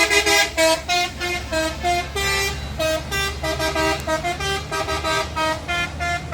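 A bus's basuri musical horn playing a quick tune of short notes, over the low rumble of the bus's engine.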